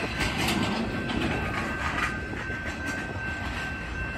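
Empty freight flatcars with rail-carrying racks rolling past at a grade crossing, their steel wheels clicking over the rail joints.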